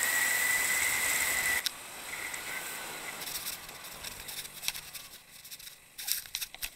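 Motorcycle riding on a rough dirt track, heard from a handlebar-mounted camera: a steady rush of riding noise with a thin whine, which drops away suddenly about one and a half seconds in. Fainter rolling sounds follow, with a quick cluster of knocks near the end.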